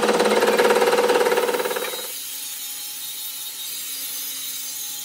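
Lathe tool cutting the rough, weld-built-up surface of a steel excavator bucket pin, a dense rapid rattling. About two seconds in it gives way to an angle grinder's steady hiss and whine as its disc cuts into the pin.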